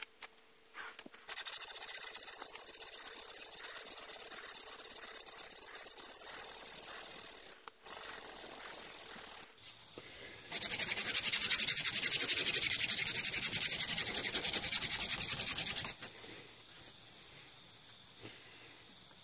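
Hand drill friction fire: a half-inch wooden spindle spun back and forth between the palms, its tip rubbing and grinding in the burn hole of a very thin wooden fireboard. About ten seconds in, the rubbing grows louder and faster, then stops suddenly about six seconds later.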